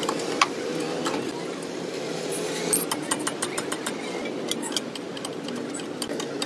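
Metal hand tools clicking and clinking against the front strut-to-knuckle bolts in short irregular taps, heaviest about three seconds in, over a steady mechanical drone in the background.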